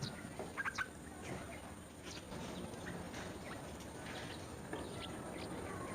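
Birds chirping: short, high chirps scattered through, with a quick run of three notes a little under a second in, over steady low background noise.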